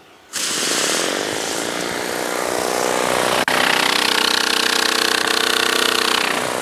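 Mosmatic Hurricane undercarriage cleaner spraying at 3,500 PSI and 4 gallons a minute through two number 3 nozzles, its water jets blasting against a foam board held a few inches above: a loud, steady spray hiss with a hum underneath. It starts suddenly a moment in and drops out for an instant about halfway.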